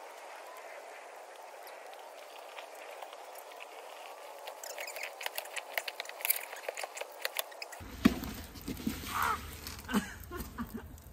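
Snowboard scraping and crackling over icy, crusted snow as it comes down to the rail. About eight seconds in the rider falls with a single loud thump, followed by a couple of short cries.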